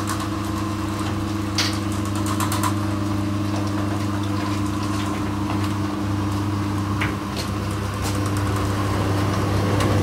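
LiftMaster 5580 electric garage door opener running steadily, its motor humming as it drives the trolley and arm along the rail to open a canopy door. A few light clicks and rattles from the moving trolley and arm sound over the hum.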